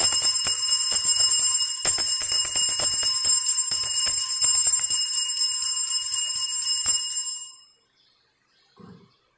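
Altar bells shaken in rapid jingling peals as the consecrated host is elevated at Mass, a signal of the consecration; the ringing stops about seven seconds in and dies away. A soft low knock follows near the end.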